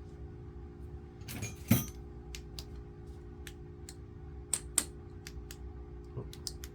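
Sharp metallic clicks of a wrench working the primary chain tensioner adjuster on a BSA A65, about three a second, after one louder knock near the start.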